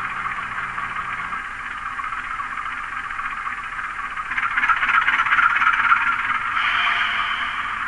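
ESU LokSound Select decoder playing a GE FDL diesel prime-mover sound through a model locomotive's small speaker: a thin, buzzy engine sound with little bass. It grows louder about four seconds in, and a higher steady tone joins it briefly near the end.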